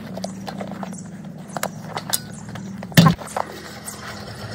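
BMX wheels being handled: scattered light clicks and knocks, one loud knock about three seconds in, over a steady low hum.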